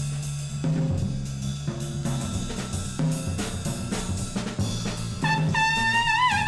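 Jazz trio recording: a double bass moves under drums, and about five seconds in a trumpet enters on a loud, wavering note that slowly falls.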